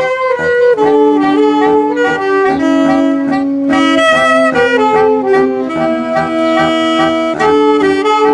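Saxophone quartet playing in harmony, several saxophones holding chords that change every second or so.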